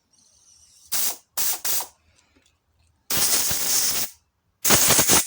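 Compressed air blasting through a washed hydraulic lifter plunger, spraying out the petrol inside it. There are five hissing blasts: a short one about a second in, two in quick succession, a longer one of about a second, and a last one near the end. The air passes freely, a sign that the plunger's check valve is not stuck.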